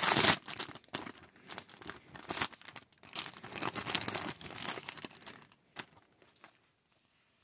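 Thin clear plastic bag crinkling and rustling as hands work it open and slide a stack of trading cards out, loudest right at the start. The crinkling stops about five and a half seconds in, followed by a couple of soft clicks.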